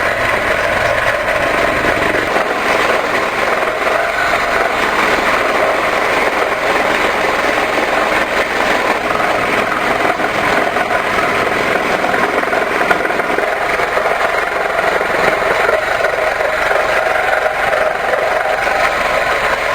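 A woodworking power tool running steadily under load, a continuous motor noise with no breaks.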